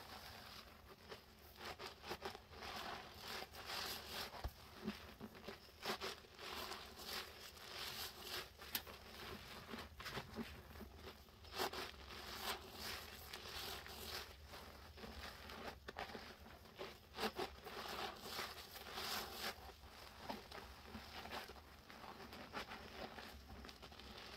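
Soaked sponges squeezed over and over by gloved hands in a thick lather of dish soap and baking soda: wet squelching and the crackle of foam bubbles popping, in an uneven run of squeezes.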